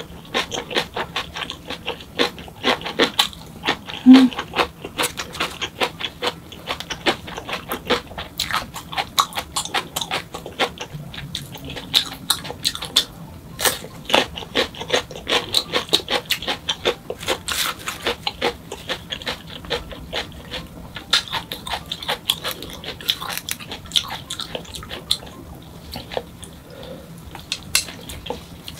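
Close-miked chewing of a mouthful of food, a rapid run of mouth clicks and smacks. One louder click comes about four seconds in.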